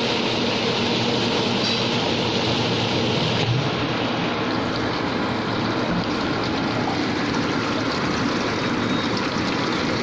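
20-litre water-jar washing machine running: the jar spins against rotating bristle brushes, giving a steady motor hum under an even hiss like running water.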